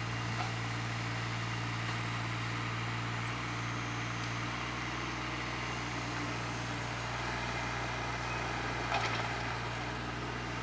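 JCB 8014 CTS mini excavator's diesel engine running steadily at a constant low hum. A couple of light knocks come about nine seconds in.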